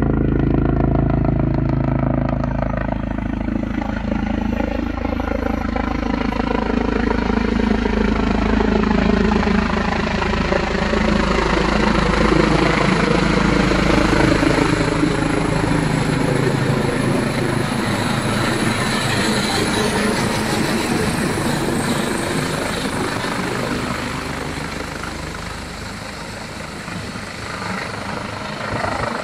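Airbus H145 twin-turbine helicopter flying over on its landing approach: steady rotor and turbine noise with a pitched drone that slides gradually downward as it comes closer and passes overhead, loudest around the middle, then easing off as it moves on.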